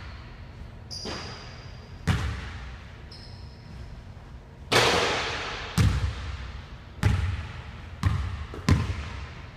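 A basketball bounces on a hardwood gym floor: a run of hard thuds about a second apart, coming faster near the end, each echoing in the large hall. Short high squeaks come in the first few seconds.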